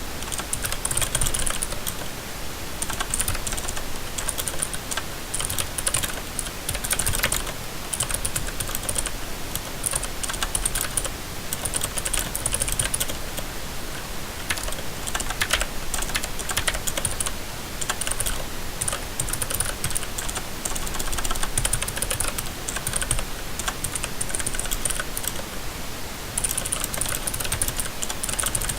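Continuous typing on a mechanical keyboard with blue (clicky) switches and rubber O-rings fitted under the keycaps, giving rapid crisp clicks in bursts with short lulls.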